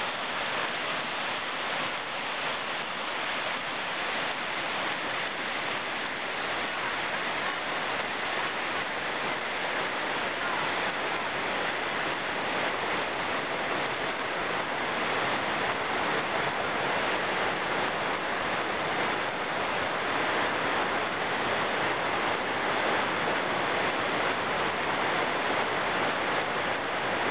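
Steady rushing roar of a whitewater rapid, river water pouring over and around boulders, slowly growing a little louder.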